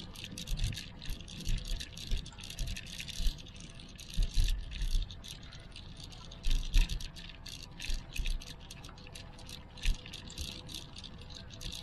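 Irregular clicking and rattling, with dull low thumps now and then.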